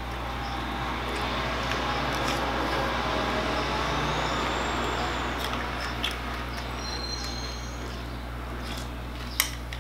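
A road vehicle passing outside, its noise swelling over a few seconds and fading, with a faint high squeal. Under it, crunchy cereal is being chewed and a plastic spoon clicks sharply against a plastic bowl a few times, loudest near the end.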